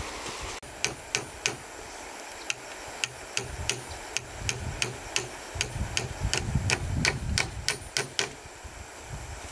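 Hand-tool strikes during construction work: a quick, irregular series of sharp knocks, about three a second, over a low rumble.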